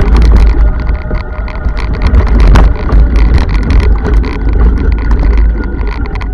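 Bolens tractor engine running during snow clearing, loud, with a heavy low rumble and dense rattling.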